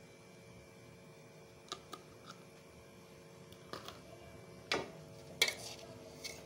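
A few scattered sharp clicks and clinks of a metal spoon on the pan and a plastic jar of gond powder, the loudest two about five seconds in, over a faint steady hum.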